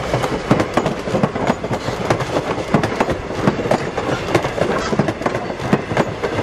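Passenger coaches rolling past close by, their steel wheels clicking and clattering over the rail joints, with a steady rumble of running gear underneath.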